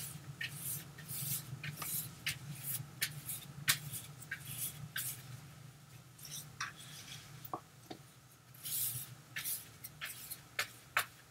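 Wide bristle brush scrubbing thick tinted gesso onto paper: faint, irregular scratchy strokes, a few a second, with a couple of light clicks about midway.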